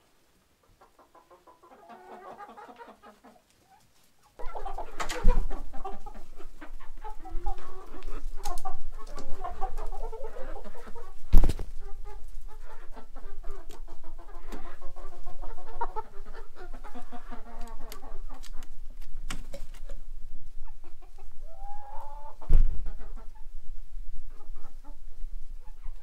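Flock of domestic chickens clucking, many short calls overlapping, starting suddenly about four seconds in after near quiet. A few sharp knocks stand out, the loudest about eleven seconds in, over a low steady hum.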